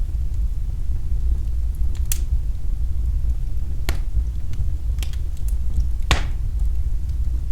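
Wood fire in a fireplace crackling, with a handful of sharp pops over a steady low rumble; the loudest pop comes about six seconds in.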